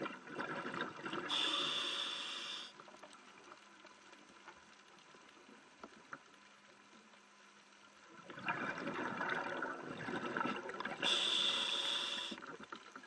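A scuba diver breathing through a regulator underwater, twice: each breath is a gurgle of bubbles followed by a short high hiss, with a quiet pause of several seconds between the two.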